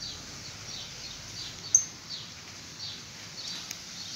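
A small bird chirping over and over in short falling chirps, about two a second, with one brief, sharper high note a little under two seconds in.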